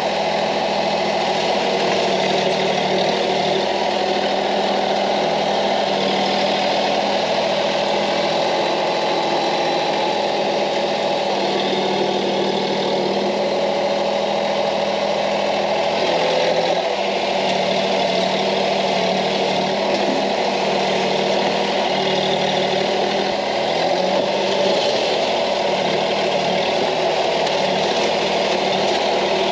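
Branson 2515H compact tractor's diesel engine running steadily as the front-loader bucket, fitted with a tooth bar, digs into hard red clay.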